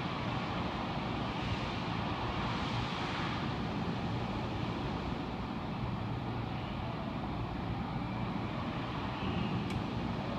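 Steady low rumble with a fainter hiss above it: unbroken background noise with no distinct event.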